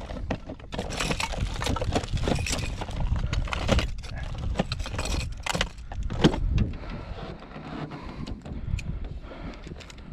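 A hooked redfish being unhooked by hand: irregular knocks, scrapes and rattles as the fish flops about and the hook is worked out, with a louder knock about six seconds in. A low wind rumble lies underneath.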